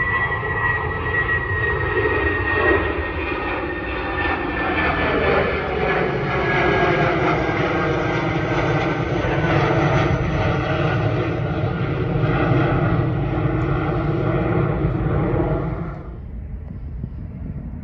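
Spirit Airlines Airbus A320-family jet climbing out after takeoff: a loud, steady turbofan engine noise with high whining tones that slowly fall in pitch as it passes. The sound cuts off abruptly near the end, leaving only a quieter outdoor background.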